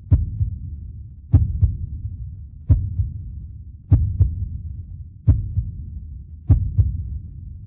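Deep double thumps like a slow heartbeat, a strong beat followed closely by a weaker one, repeating about every 1.3 seconds over a steady low rumble.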